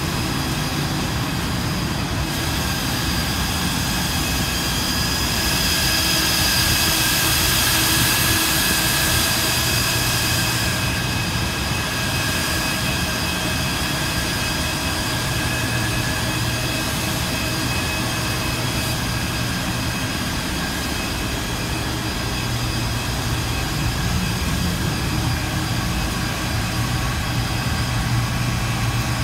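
Cooling fans of rack-mounted servers and network equipment running: a steady whir with several high whining tones over a low hum, louder for a few seconds about a fifth of the way in.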